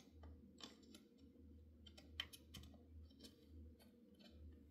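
Faint, scattered small clicks and taps as an M.2 NVMe SSD is pushed into its motherboard slot by hand, one click a little louder about two seconds in, over a faint low hum.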